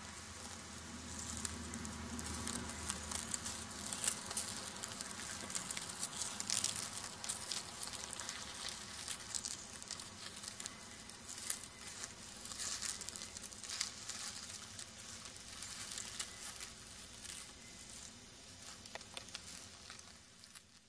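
Dry grass and leaf litter rustling and crackling in many small, irregular crackles as a Blanding's turtle pushes through it, fading toward the end.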